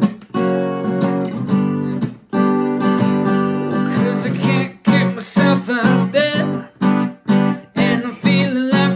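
Acoustic guitar strummed in repeated chords, with a man's voice singing along without clear words in the second half.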